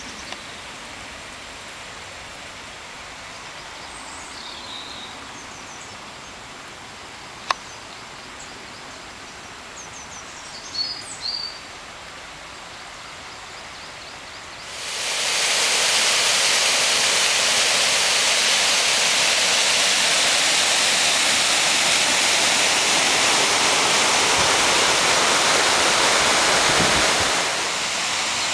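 The shallow River Leen rushing over a riffle: a steady hiss of flowing water that swells up about halfway through and eases off near the end. Before it there is only faint water noise, a few brief bird chirps and a single sharp click.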